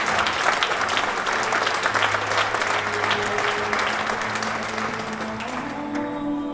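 Audience applauding over background music; the clapping fades out near the end, leaving the music.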